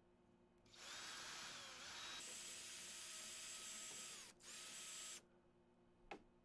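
Cordless drill running as its bit drills out a rivet in a cargo box strut bracket held in locking pliers. It runs steadily for about three and a half seconds, stops briefly, then runs again for under a second.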